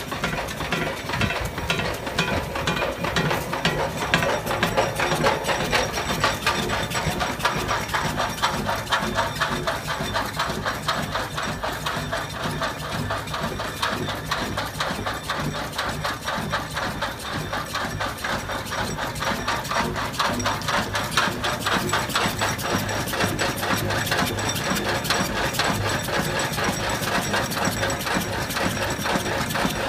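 8-horsepower Clayton & Shuttleworth steam engine running steadily, its motion giving a rapid, even knocking beat several times a second.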